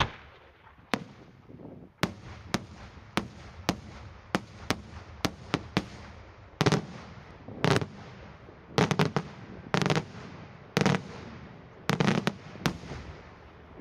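Daytime aerial fireworks: shells bursting overhead in a rapid series of sharp bangs. At first the bangs come singly, about twice a second. In the second half they come in heavier clusters of several reports, with a rumble carrying on between them.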